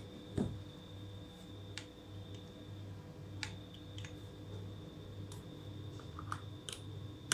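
Scattered light clicks and taps from handling a mechanical keyboard, with a soft thump about half a second in, over a steady low hum.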